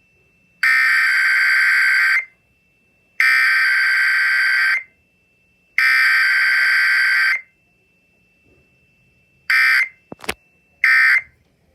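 Emergency Alert System SAME header: three loud bursts of buzzing, warbling digital data tones, each about a second and a half long. Near the end come two short bursts of the same tones, with a sharp click between them.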